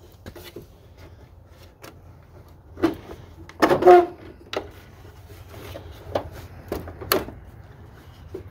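Plastic clicks, knocks and rattles as the headlight and corner-lamp assembly of an early 1997 Ford F-150 is worked loose and a bulb socket is twisted out of the lamp. The loudest is a short squeaky plastic creak about four seconds in.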